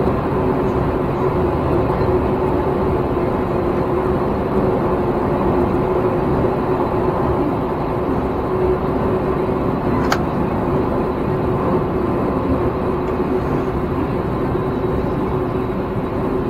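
Train running at speed, heard inside the passenger car as a steady, even running noise with a faint constant hum. A single small click about ten seconds in.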